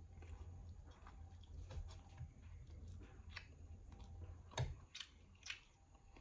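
Faint eating sounds: scattered soft clicks and mouth noises of chewing, with a sharper click about four and a half seconds in and another about a second later, over a steady low hum.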